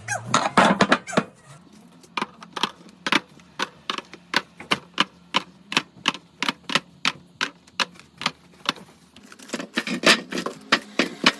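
A quick run of sharp clicks and taps, about two to three a second, crowding closer together near the end.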